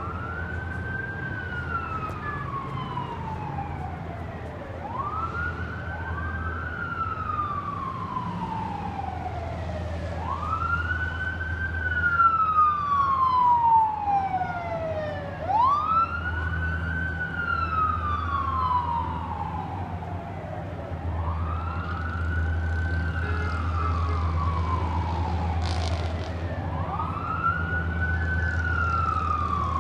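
Emergency vehicle siren wailing: each cycle climbs quickly and then slides slowly down, repeating about every five seconds, at times doubled by a second siren slightly out of step. A steady low rumble runs underneath.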